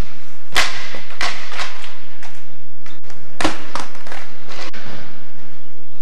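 Skateboard hitting the hard floor after a missed flip trick: several sharp clacks and knocks as the deck and wheels slap down and bounce, loudest about half a second in and again about three and a half seconds in.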